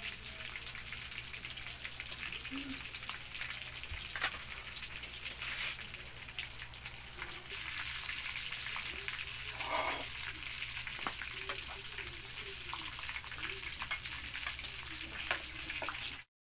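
Batter-coated chicken bones deep-frying in hot oil in a wok: a steady sizzle with many scattered pops and crackles, cutting off abruptly near the end.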